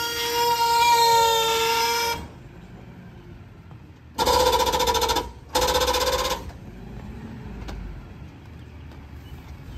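McNeilus rear-loading garbage truck giving off a steady high pitched tone for about two seconds, then two short blasts of the same tone about a second apart, over the truck's low idle.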